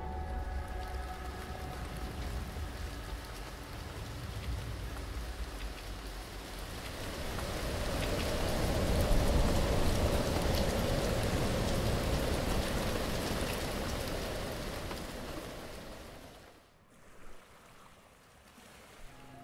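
Steady rain falling, with the patter swelling to its loudest about halfway through and then fading out near the end.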